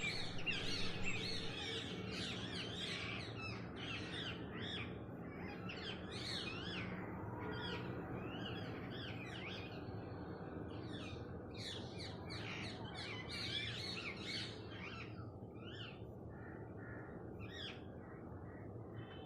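Pet parrots chirping, many quick overlapping high chirps without pause, over a low steady hum.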